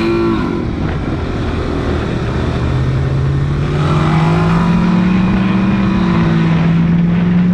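Car engine revving hard and held at high revs during a burnout, its pitch climbing slowly and steadily.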